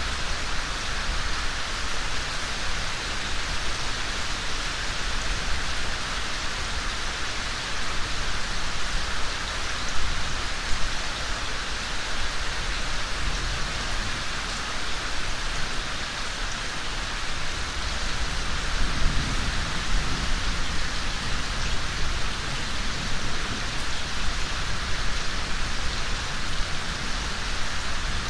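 Steady rain falling, an even hiss with scattered louder drops.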